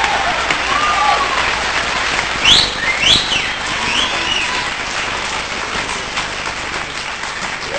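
Studio audience applauding, with whistles rising and falling above the clapping; two loud whistles stand out about two and a half and three seconds in.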